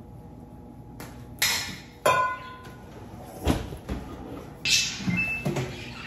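Kitchen clatter: a metal cooking pot and utensils clinking and knocking against the counter in several separate strikes, one about two seconds in ringing on briefly.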